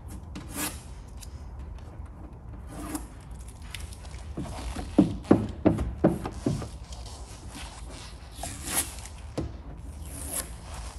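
Plastic squeegee with a felt or cloth edge rubbed across vinyl graphic film on a vehicle body panel: a run of about seven short, quick strokes about halfway through, with a few single strokes before and after.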